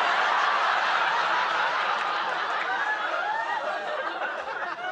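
Studio audience laughing after a punchline, many voices at once, loud at the start and slowly dying down.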